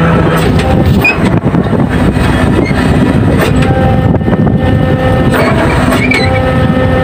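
Fishing vessels' engines and deck machinery running loudly and steadily while a winch hoists a brailer net full of skipjack tuna, with scattered knocks and clanks.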